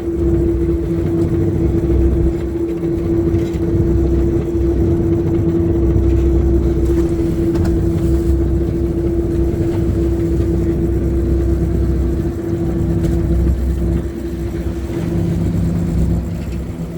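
Fishing boat's engine running steadily under way: a constant hum over a low rumble.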